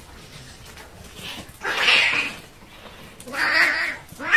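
Two cats fighting, screeching and yowling in three loud bursts about half a second long, with quieter gaps between them.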